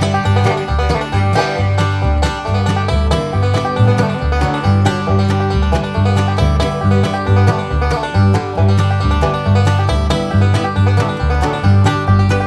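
Background music: an upbeat bluegrass-style tune with banjo, guitar and a pulsing bass line.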